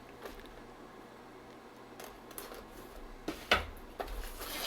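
A blade slitting the plastic wrap on a product box: faint scratching with a few sharp clicks, the loudest about three and a half seconds in.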